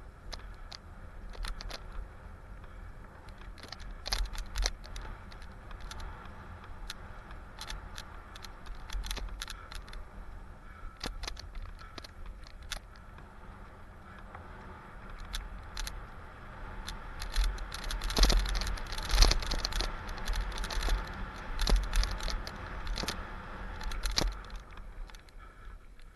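Mountain bike running down a dirt singletrack: chain and frame rattling and clicking over the bumps, tyres on dirt and a low rumble underneath. It gets rougher and louder for several seconds about two-thirds of the way through.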